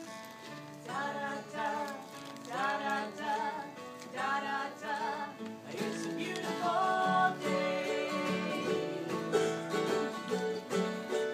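Live acoustic duo playing a country-folk tune: an acoustic guitar and a second plucked string instrument play chords under a wavering melody line.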